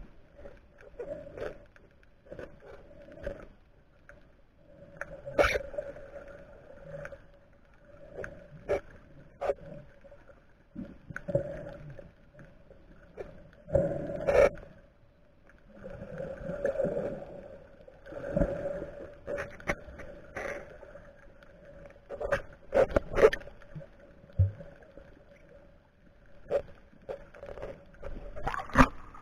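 Underwater sound through an action camera's waterproof housing: muffled swishing and surging of water with scattered clicks and knocks over a steady hum.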